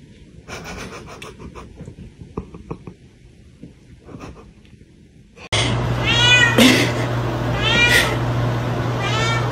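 Quiet rustling and a few light knocks, then, starting abruptly about five and a half seconds in, a domestic cat meowing loudly three times about a second and a half apart, each meow rising and then falling in pitch, over a steady low hum.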